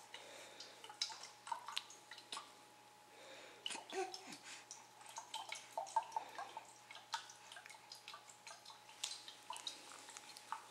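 Faint, scattered wet clicks and smacks of a baby's mouth working on a piece of melon. There is a brief falling vocal sound about four seconds in.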